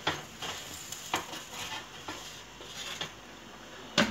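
Metal wire oven rack clicking and scraping against the oven's runners as it is set in and slid into the oven, with a louder clank near the end.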